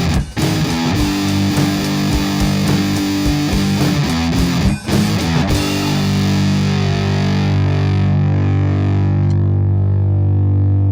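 Distorted electric guitar music: a rhythmic strummed riff broken by two short stops, then a single chord held and left ringing from about halfway through.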